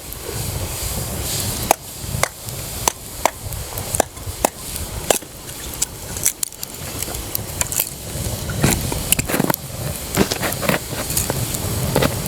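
Wood campfire burning, crackling with many irregular sharp pops and snaps.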